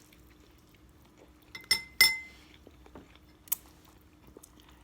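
Eating utensils clinking against a bowl during a noodle meal: two sharp clinks that ring briefly, about 1.7 and 2 seconds in, then a lighter click about a second and a half later, with a few faint taps.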